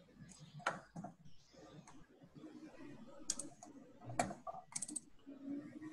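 Scattered computer keyboard clicks and taps, heard faintly through an online call's microphone, with a quick run of several clicks near the end.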